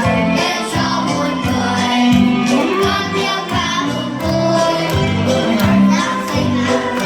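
Vietnamese Christmas song: voices singing over a band, with a steady beat of bass notes and percussion.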